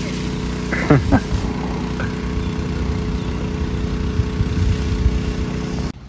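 A telehandler's diesel engine running steadily at idle, with a brief shout about a second in.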